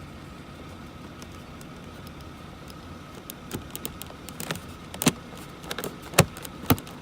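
A plastic dashboard trim panel in a Mercedes W210 being handled and snapped back into place: a run of sharp clicks and knocks in the second half, a few of them much louder, over a steady faint hum.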